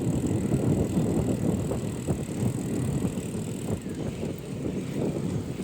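Wind buffeting the microphone: a steady low rumble that wavers in strength.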